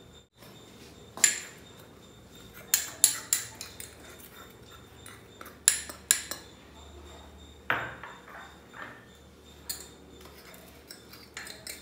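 A spoon clinking and tapping against a small glass bowl and the rim of a stainless-steel mixer jar as powder is scraped in. It is a string of sharp, irregularly spaced clinks.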